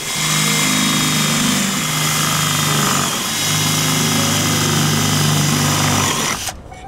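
Cordless drill running at full speed, its bit boring through a 2-inch aluminum bracket strip. The motor runs steadily, then stops near the end.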